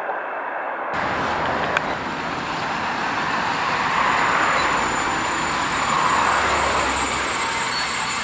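Empty freight container flat wagons rolling along the rails, a steady noise of steel wheels on track that sets in suddenly about a second in, with a single sharp click shortly after.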